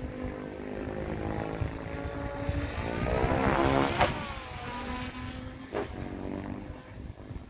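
Radio-controlled helicopter flying past. Its rotor and motor whine rises in pitch and level as it closes in, then drops in pitch as it passes about four seconds in. A brief sharp sound follows near six seconds.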